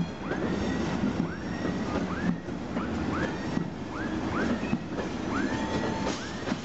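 Freight train of covered box wagons and flat wagons rolling past, its wheels rumbling on the rails. Short squeals that rise quickly in pitch recur roughly twice a second.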